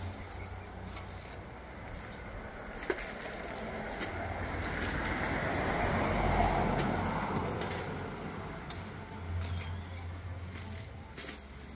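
A vehicle passing by: a rushing noise that swells to a peak about halfway through and fades away, over a steady low rumble, with a sharp click about three seconds in.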